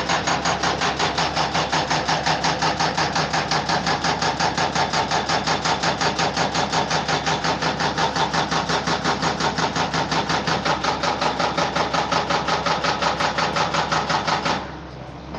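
A loud machine running with a fast, even pounding rhythm, about five or six beats a second. It stops suddenly shortly before the end, leaving a quieter steady hum.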